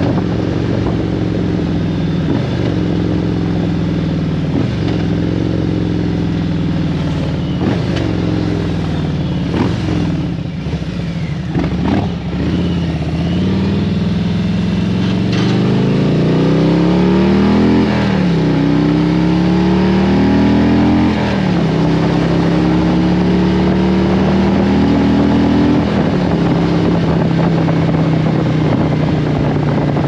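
2017 Harley-Davidson Road Glide Special's Milwaukee-Eight 107 V-twin, heard from the rider's seat. It eases off with a few sharp clicks, then pulls away about halfway through, pitch rising and dropping at two gear shifts, and settles into a steady cruise.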